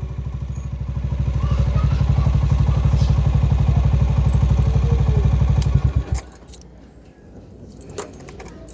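Motorcycle engine running with an even, rapid firing pulse, then switched off about six seconds in. A few light clicks and clatter follow.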